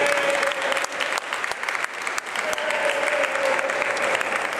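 Crowd applauding: many hands clapping in a dense patter that thins out near the end.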